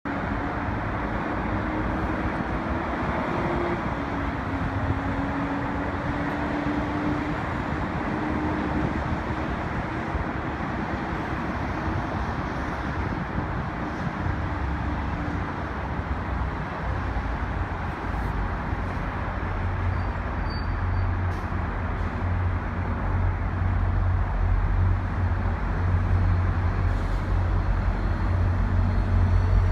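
Steady outdoor vehicle noise with a faint wavering engine tone, then a low engine rumble that builds and grows louder over the second half.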